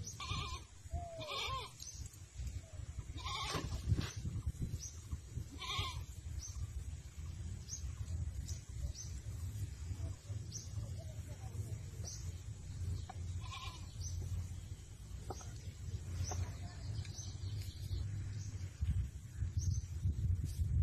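A few short animal calls, about five in all, with short high chirps repeating roughly once a second over a steady low rumble.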